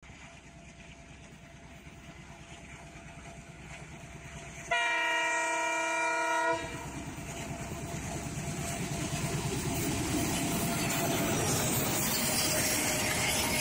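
A WDG3A diesel locomotive hauling a passenger train approaches, its engine and wheels on the rails growing steadily louder. About five seconds in it sounds its horn, one long blast of just under two seconds, then passes close with engine and wheel noise getting louder still.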